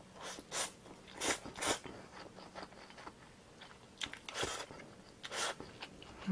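Close-miked eating of Indomie Mi Goreng stir-fried instant noodles: noodles taken into the mouth and chewed, with about five short, sharp mouth noises among quieter chewing.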